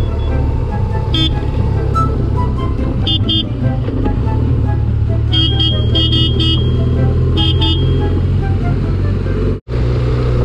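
Adventure motorcycle engine running steadily on a gravel road, with the horn beeped in short toots: once, then a quick double, then a run of several, then another double. The sound drops out for an instant near the end.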